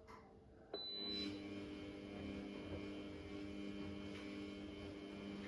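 A click about three-quarters of a second in, then a steady electric hum made of several tones, as of a kitchen appliance switched on.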